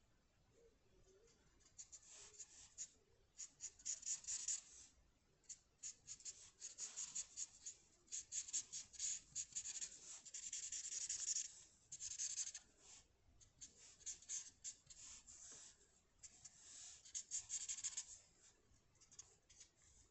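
A drawing tool scratching on paper in runs of quick, rapid strokes, as in sketching or shading, with short pauses between runs; the strokes are faint.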